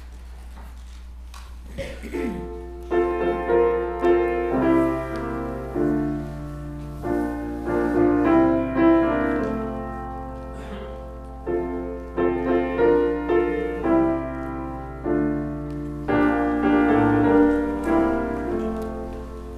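Grand piano playing a hymn introduction in steady chords. It begins about two seconds in and ends just before the close.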